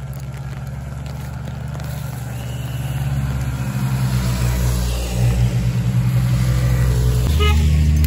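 Race escort motorbike engines running steadily and getting louder as they come up the road behind a lone cyclist, with a hiss rising alongside. The hum shifts abruptly to a deeper tone near the end.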